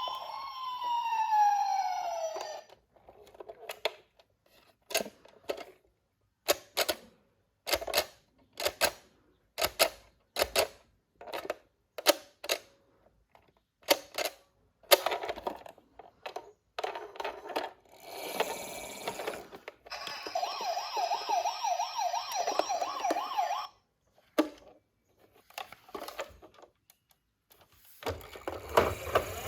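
A battery-operated toy vehicle's electronic siren wailing up and down, which stops after about two and a half seconds. It is followed by a string of separate clicks and knocks from handling the plastic toy and its packaging. A fast electronic warble plays for about three seconds past the middle.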